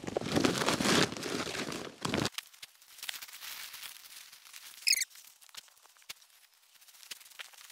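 Compost tipped out of a woven plastic bulk bag, the bag fabric crinkling and the compost spilling, cutting off abruptly about two seconds in. Then faint rustling and light ticks of hands working the weed membrane, with one brief high chirp about five seconds in.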